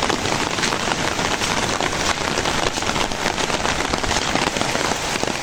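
Heavy rain falling steadily, a dense patter of drops.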